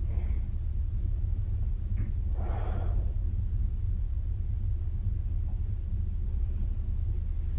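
A steady low rumble throughout, with one audible breath from a person holding a stretch about two and a half seconds in.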